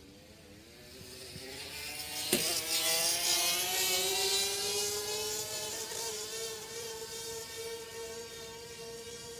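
Small engine buzzing as it passes, its pitch rising as it speeds up. It is loudest a few seconds in and then slowly fades, with a sharp click about two seconds in.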